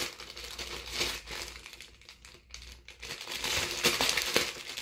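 Plastic packaging crinkling as it is handled, in irregular bursts, with a quieter pause in the middle.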